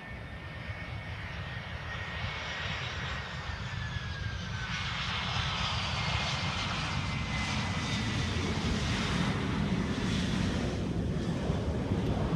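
Jet airliner passing close by on landing, its engine whine gliding down in pitch as it goes past while the low engine rumble grows steadily louder.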